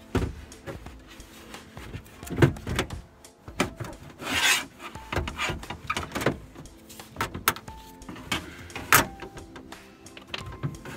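Hands working on the Tahoe's door, prying off plastic trim to free the window glass: scattered clicks and knocks, with a brief scraping rub about four and a half seconds in.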